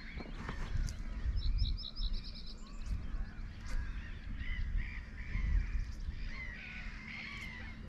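Wild birds calling: a string of short arched calls throughout, with a quick run of about six high notes about one and a half seconds in, over a steady low rumble and a few faint clicks.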